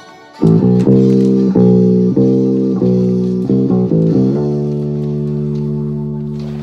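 Precision-style electric bass guitar played with the fingers: a run of plucked notes about one every 0.6 seconds, then from about four seconds in a single long held note that slowly fades.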